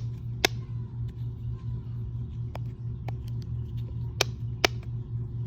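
A handful of sharp, short clicks from a small plastic fidget toy being handled and popped, over a steady low hum.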